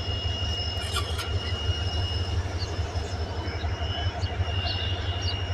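Diesel engine of a rail work vehicle running steadily at idle, a constant low rumble with a thin steady whine above it. A few faint short bird chirps come through near the middle.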